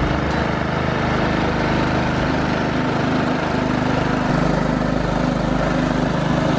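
Small engine of a Third Lung hookah dive compressor running steadily, pumping air down the hoses to a diver.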